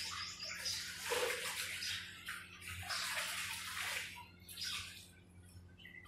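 Pencil rubbing across paper in repeated shading strokes, each a scratchy hiss of about a second, growing fainter near the end, over a low steady hum.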